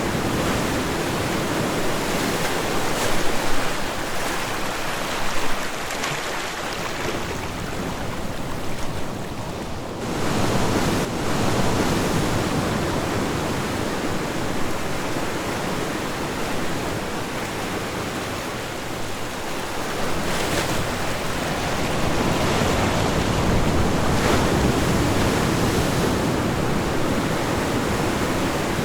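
Ocean surf washing on a shore: a continuous rush of water that swells and eases. Fresh waves build about ten seconds in and again about twenty seconds in.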